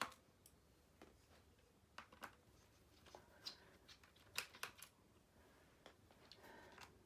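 Faint, irregular clicks and taps of a screwdriver and small screws being handled while the bottom-case screws of an HP Stream 11 laptop are taken out and set aside.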